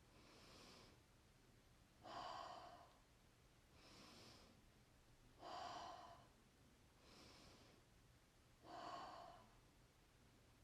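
Slow, deliberate breathing exercise: three cycles of a soft inhale through the nose followed by a louder, open-mouthed exhale through the mouth, each breath under a second, spaced evenly.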